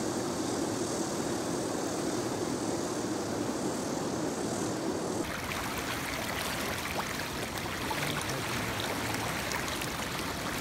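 Steady rush of a shallow river riffle flowing fast over stones. About five seconds in it turns abruptly into a brighter, closer hiss of water streaming past.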